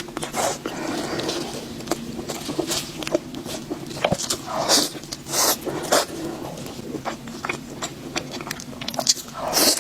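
Close-miked chewing and crunching of a sauced fried chicken cutlet. The sound is irregular wet mouth clicks and crackly bites, with louder crunches around the middle and near the end.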